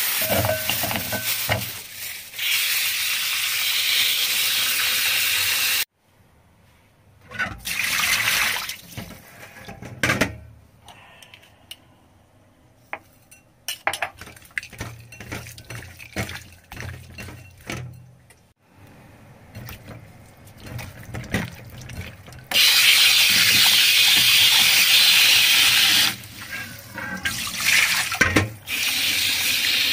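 Kitchen tap running into a sink in long stretches, stopping and starting several times, with a quieter middle stretch of hands working raw chicken wings in a glass bowl: scattered clicks and rubbing.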